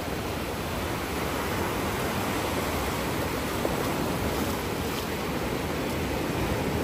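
Sea waves breaking and washing up the beach in a steady rushing wash.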